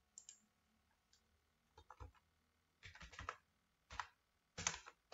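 Typing on a computer keyboard: a few lone keystrokes, then short bursts of several keys about a second apart.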